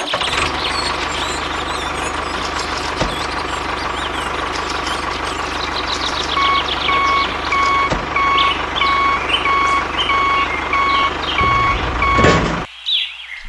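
A vehicle's reversing alarm beeping about twice a second over a running motor. The beeping starts about halfway in, and everything cuts off suddenly near the end.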